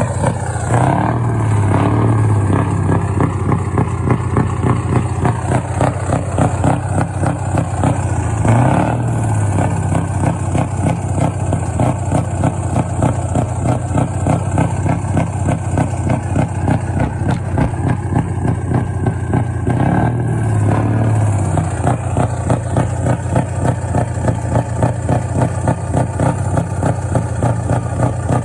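Scania V8 diesel truck engine running with a steady, even pulsing exhaust beat. It picks up briefly a few times, about a second in, around eight seconds and around twenty seconds.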